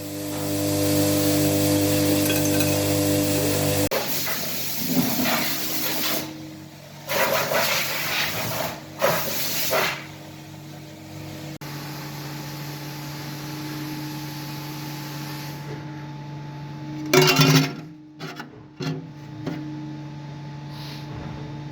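Workshop noises. A steady machine hum stops abruptly about four seconds in. It is followed by several short bouts of scraping or rubbing, a quieter steady hum, and a brief loud burst of noise a few seconds before the end.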